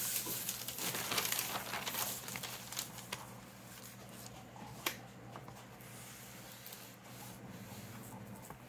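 Paper rustling and crinkling as a thin cover sheet is laid and smoothed by hand over a loose Bible page before ironing, loudest in the first two seconds and quieter after. A single sharp click about five seconds in.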